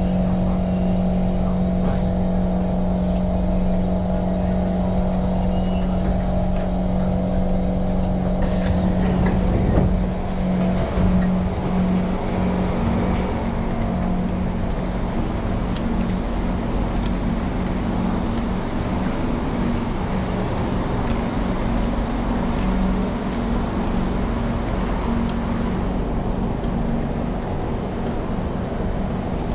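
Singapore MRT train running: a steady hum with a low rumble. About ten seconds in there is a knock, after which the sound turns to a more even rushing rumble with a fainter hum.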